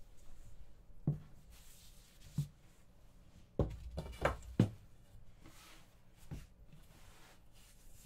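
Wooden rolling pin working a sheet of soba dough: soft brushing and rubbing sounds broken by about seven wooden knocks as the pin drops from the dough onto the wooden work board, four of them in quick succession around the middle.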